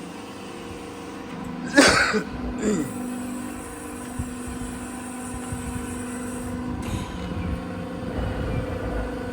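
Steady electrical-mechanical hum of a 130-ton CNC press brake running idle, with a brief loud noise about two seconds in.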